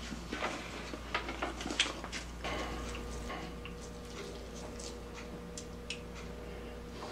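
Light clicks and taps of a utensil against a dish, scattered and irregular, mostly in the first couple of seconds. A faint steady hum comes in about two and a half seconds in.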